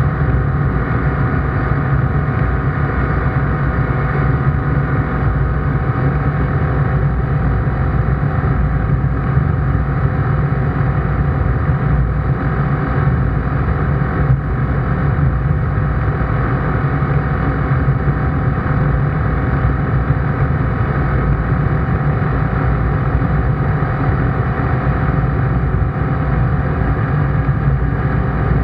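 ICP Bingo ultralight's engine and propeller droning steadily in cruise flight, heard from inside the cockpit.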